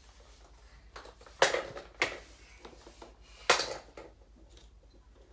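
Hollow plastic Easter eggs clacking as they are picked up and handled: three sharp knocks, the first about a second and a half in, the next half a second later, and the last about two seconds after that.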